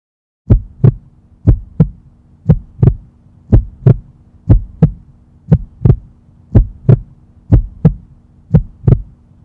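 Heartbeat sound effect: nine double thumps, about one beat a second, over a faint steady low hum, starting about half a second in.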